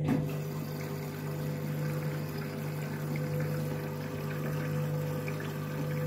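Candy front-loading washing machine taking in water for a mid-cycle top-up: water running into the drum through the open inlet valve, an even rushing hiss over a steady hum.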